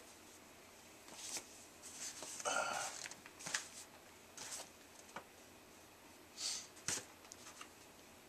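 Cardboard shipping box and paper being handled: scattered rustles, scrapes and light taps, the longest scraping rustle about two and a half seconds in and a couple of sharp taps near the end.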